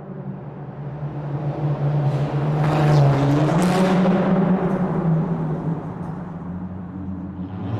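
Car driving through a tunnel: a steady engine hum under a rush of road and air noise that swells to a peak about three seconds in, as if a vehicle were going by, then fades away.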